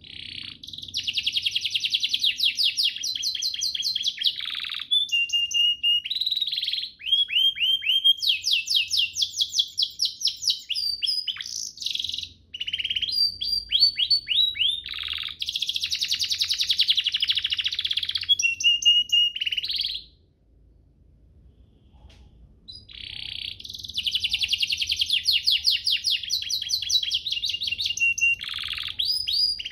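Domestic canary singing a long, fast song of rapid trills and rolls. It stops about two-thirds of the way through and starts again about two seconds later.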